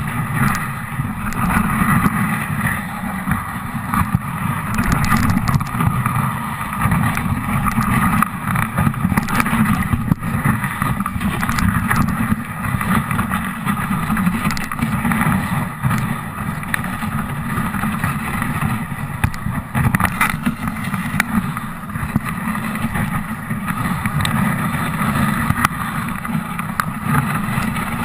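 A dog sled travelling over snow: a steady rumble and hiss of the sled runners, with wind buffeting the microphone and a few brief knocks from bumps.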